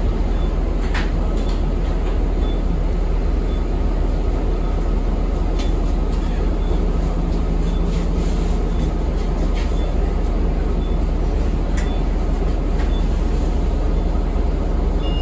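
Steady low rumble of engine and road noise inside a moving Pace 2013 Eldorado National Axess transit bus, with scattered short rattles. Faint short high beeps come about once a second.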